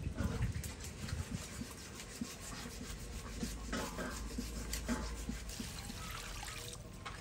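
Leafy vegetables, stems and flower clusters rustling and tapping as they are handled and dropped into a plastic basket, with many small irregular crackles and clicks.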